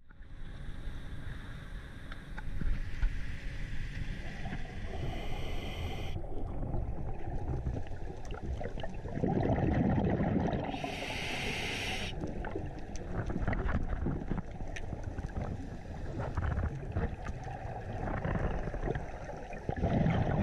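Muffled underwater camera audio: a steady low rumble with gurgling and scattered clicks, swelling louder about halfway through and again near the end, which fits divers' exhaled regulator bubbles.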